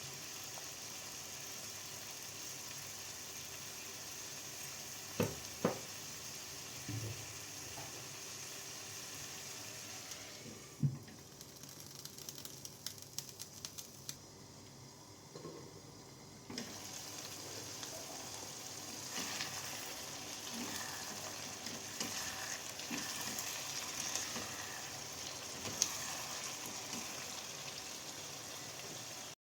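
Food sizzling in oil in a frying pan, a steady hiss that dies down for several seconds in the middle and then picks up again, with a few short knocks along the way.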